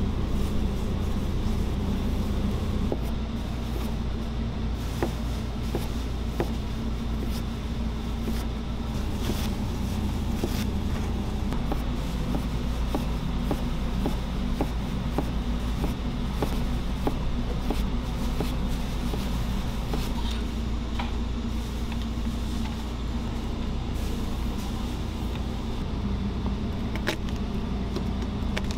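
Chef's knife chopping onion on a plastic cutting board: a run of sharp taps as the blade strikes the board, over a steady low hum.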